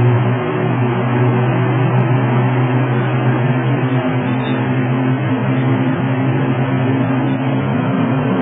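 Inside a minivan's cabin at very high freeway speed: steady engine drone with road and wind noise.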